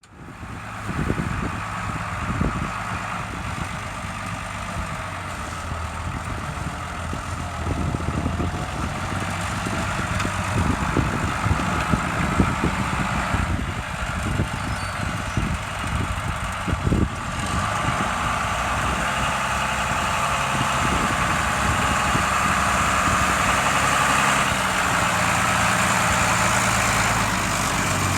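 New Holland 8160 tractor's six-cylinder diesel engine running under load as it pulls a four-furrow rollover plough. The engine's pitch shifts a few times, with occasional short knocks.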